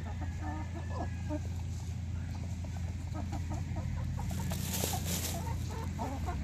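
Domestic hens clucking softly while they peck at feed, over a steady low hum, with a brief rustle about four and a half seconds in.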